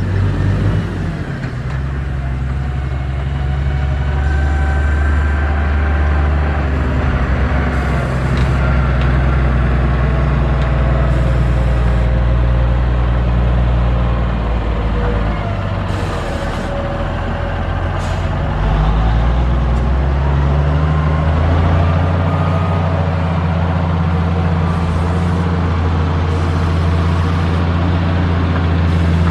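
Heavy diesel engine of road-building machinery running under load. Its note drops about halfway through and comes back stronger a few seconds later, with a few faint short squeals above it.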